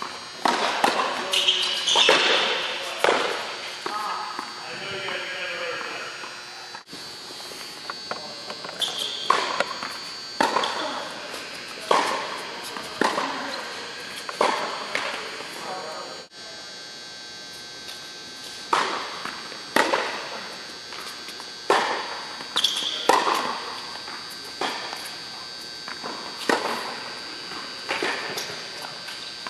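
Tennis rallies on an indoor court: racket strikes on the ball and ball bounces land about once a second, each echoing in the hall. The footage cuts abruptly twice.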